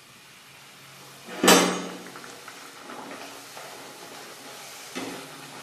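Poori frying in hot oil in a kadhai: a sudden loud burst about a second and a half in as the dough goes into the oil, then steady sizzling. A softer knock of the slotted metal spoon against the pan comes near the end.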